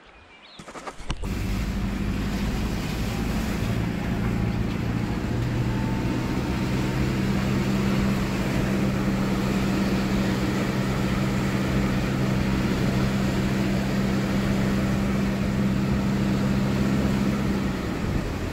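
A vehicle driving, heard from inside the cab: a steady engine hum under a constant rushing noise, starting about a second in. The hum stops shortly before the end while the rushing goes on.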